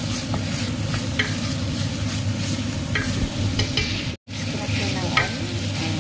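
Carrot, leeks and onion stir-frying in hot oil in a pan: a steady sizzle, with a utensil clicking and scraping against the pan now and then. The sound cuts out for an instant about four seconds in.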